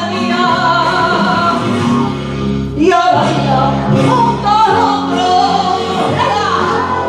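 A woman singing a copla with instrumental accompaniment, her held notes wavering with vibrato; the vocal line breaks briefly about three seconds in before the next phrase.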